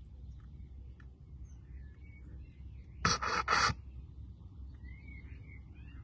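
Small birds chirping faintly in the background over a low outdoor rumble. About three seconds in, two quick, loud breathy bursts close to the microphone: a person's short exhalations.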